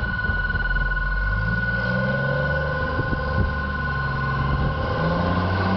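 Engine of a snow-ploughing vehicle running, its pitch rising and falling as it works, over two steady high-pitched tones.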